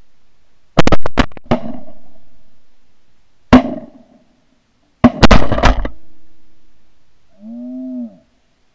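Shotgun volley. About four shots in quick succession a second in, a single shot at about three and a half seconds, then another quick string of shots around five seconds, each dying away in a short echo. Near the end comes a drawn-out call that rises and falls in pitch.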